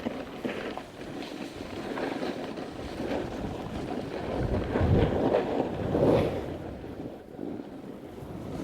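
Snowboard sliding over snow, a rushing scrape that swells a couple of times around the middle as the board's edge digs into a turn, with wind on the microphone.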